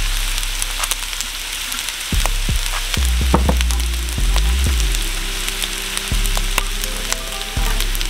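Cold cooked rice and oyster sauce frying in a hot wok over a medium-high flame: a steady sizzle with scattered small pops.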